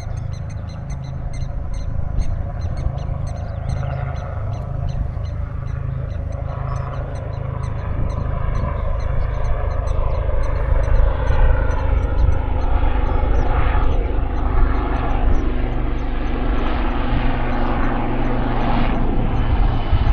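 Distant engine drone, growing louder through the second half, over heavy wind rumble on the microphone.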